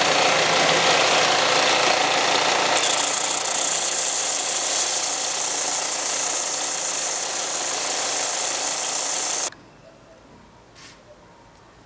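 Belt sander running with an epoxy-putty-filled aluminium ring pressed against the belt, grinding off the excess putty; the grinding hiss grows harsher and higher about three seconds in. The sound cuts off abruptly near the end.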